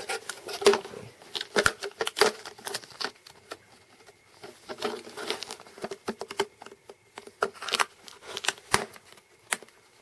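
Irregular sharp clicks, taps and light plastic rustling as computer RAM modules and their plastic packaging are handled and popped loose.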